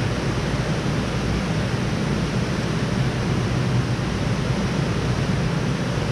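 Steady rushing background noise of a fish hatchery room, like running water, holding even throughout with no distinct events.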